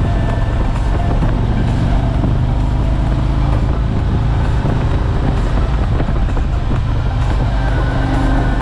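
Harley-Davidson Tri Glide Ultra trike's V-twin engine running steadily as the trike rides along the road at speed, with the loudness even throughout.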